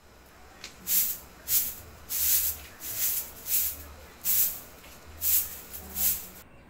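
Hand spray bottle squirting water in about eight short sprays, roughly one every two-thirds of a second.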